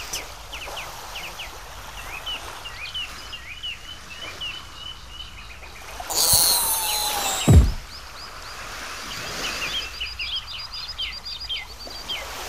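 Birdsong ambience of many short chirps. About six seconds in comes a sound effect: a rushing swish, then a falling tone that drops away into a low thump.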